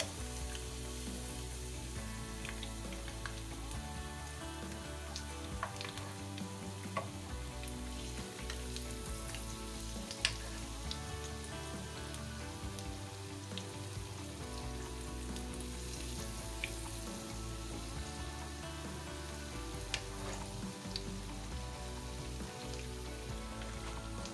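Gulgule, fritters of wheat flour and jaggery batter, deep-frying in hot oil in a kadai with a steady sizzle. A few sharp clicks stand out over it.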